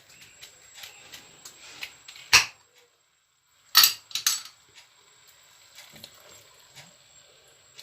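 Kitchen clatter from handling cookware and containers: light taps and rustles, a sharp click about two seconds in, then two loud knocks close together a second and a half later.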